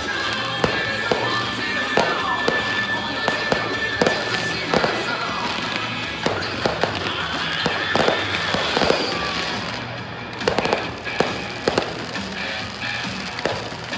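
Fireworks display: many sharp bangs and crackles at irregular intervals over music played across the grounds.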